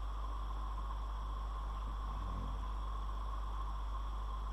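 Steady low electrical hum with a faint hiss: the recording's background noise floor between stretches of speech.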